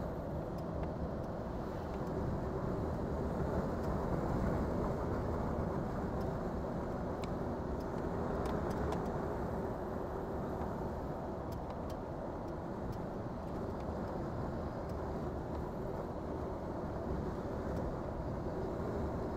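Hino Profia heavy truck driving steadily, its engine and road noise heard from inside the cab as an even rumble, with a few faint clicks here and there.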